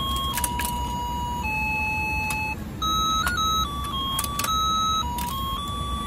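Battery-powered toy fishing game playing a slow electronic beeping tune, one held note at a time, over the steady hum of its motor turning the pond. Several sharp plastic clicks sound over it.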